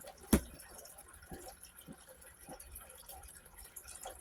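One sharp click about a third of a second in, then faint dripping: soft taps roughly every half second.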